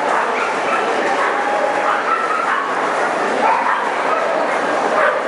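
Many dogs barking and yipping at once, a steady din of short yelps over a hubbub of voices.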